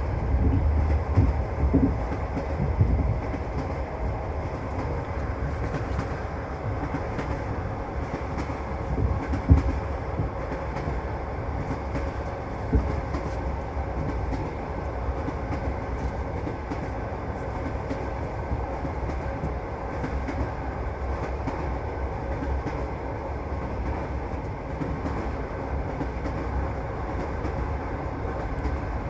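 Passenger train carriage running along the track, heard from inside the car: a steady low rumble with the wheels knocking over rail joints, several sharper knocks in the first few seconds and the loudest about a third of the way in.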